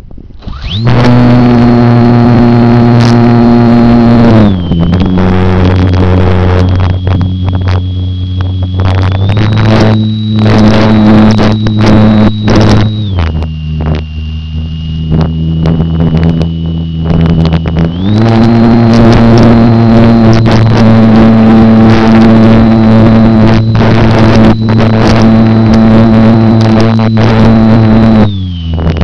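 Electric motor and propeller of a GWS Slow Stick RC plane, heard from the camera riding on board: a loud steady drone with a high whine. The throttle opens about a second in, then is eased back and opened again several times, the pitch dropping and rising in steps.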